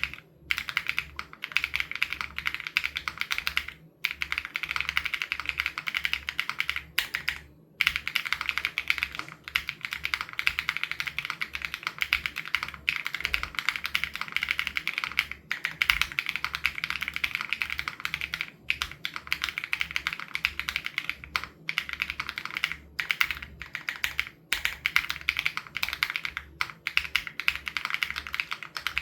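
Fast, continuous typing on an SPM AL87B mechanical keyboard with BSUN Raw switches, the keystrokes following one another rapidly. Brief pauses come about four and about seven and a half seconds in.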